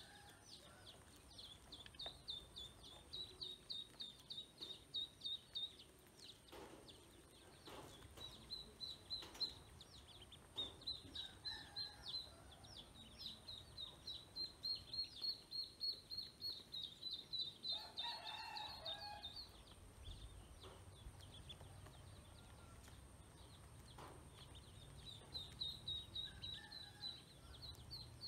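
A group of ducklings peeping in rapid runs of short, high cheeps, several a second, pausing briefly now and then.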